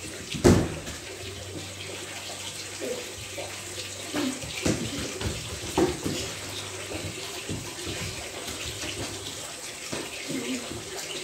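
A loud thud about half a second in, then scattered softer thumps and knocks of a football being kicked and feet on a tiled floor, over a steady hiss.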